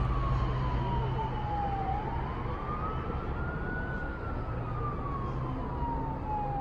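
Fire brush truck's siren on a slow wail, one clear tone gliding down and back up in pitch about every five seconds, over a low steady rumble.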